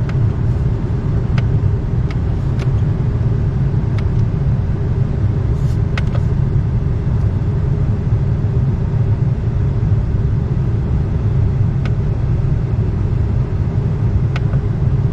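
Steady low mechanical rumble of running HVAC equipment, with a few faint clicks scattered through it.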